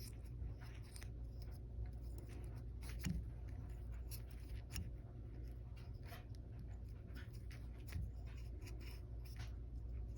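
Irregular scratchy scrubbing and wiping strokes on a Glowforge laser cutter part being cleaned of grime, over a steady low hum.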